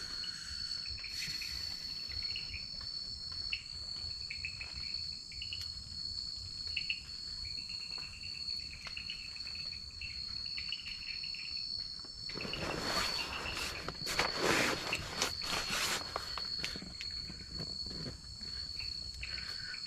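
Night jungle insects: a steady high-pitched buzzing drone, with crickets chirping in short repeated trills through the first half. About twelve seconds in, a few seconds of rustling.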